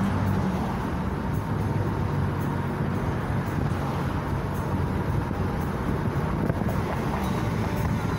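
Steady road and engine noise of a moving car, heard from inside the car: an even rumble with a low hum underneath.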